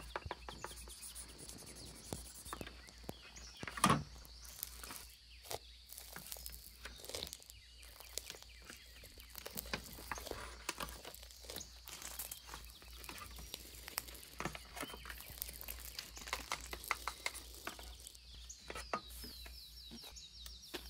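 Stickers being peeled from a sticker sheet with metal tweezers and pressed onto a paper page: a run of small clicks, crackles and taps, with one louder knock about four seconds in.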